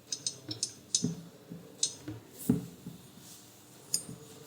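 A series of faint, irregular clicks and small knocks from a metal guide rod being worked through a tight plastic slider block during hand assembly, with one louder knock about halfway through.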